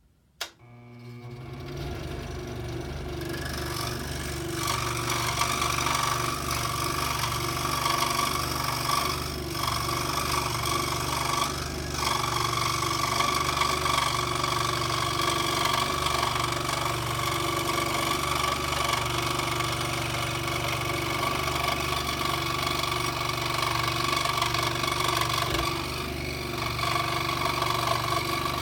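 Electric scroll saw switched on with a click, its motor coming up to speed over the first few seconds, then running steadily as it cuts.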